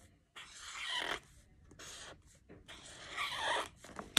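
A pen drawing on notebook paper: several separate scratchy strokes, each under a second, as the circles and lines of a number bond are drawn.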